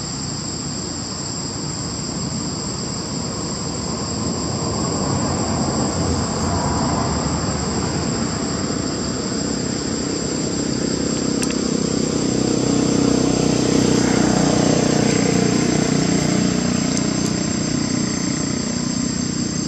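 Steady high-pitched drone of forest insects. Under it, a motor vehicle's engine grows louder from about a third of the way in, is loudest about two-thirds through, then fades somewhat.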